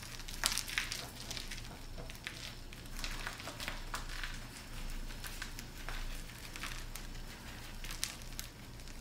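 A hand-held bag being shaken and tapped to dust powder, rustling in soft, irregular crinkles and ticks over a low steady hum.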